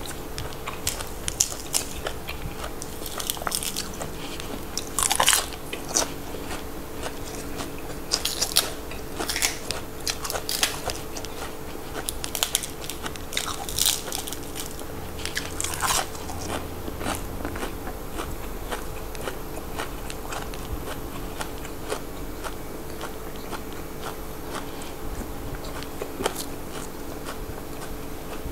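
A person biting and chewing crunchy raw vegetables close to the microphone, with sharp crisp crunches that come thickest in the first half and give way to softer chewing later.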